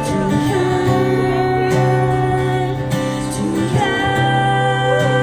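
Live acoustic pop music between sung lines: guitar with sustained held chords, and brief wavering voices over it.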